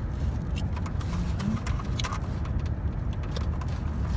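Steady low rumble inside a car's cabin, with scattered small clicks and rustles of takeout food containers and eating.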